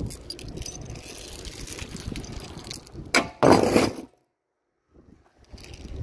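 Heavy steel chain clinking and rattling as it is handled and tossed onto a wooden trailer deck. The loudest clatter comes about three seconds in, and then the sound cuts out completely for about a second.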